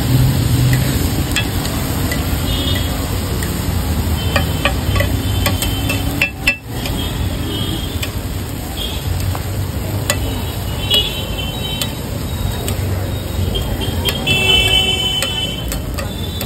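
Metal spatulas tapping and scraping on a flat griddle (tawa) as noodles are stir-fried, with frequent sharp clinks over a steady frying sizzle and street traffic.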